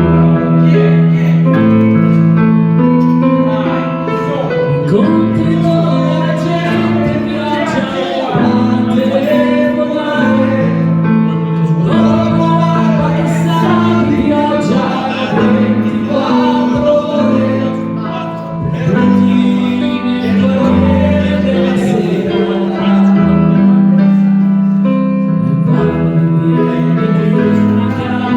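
Live piano with a singer performing an Italian pop ballad, the piano holding sustained chords under the melody.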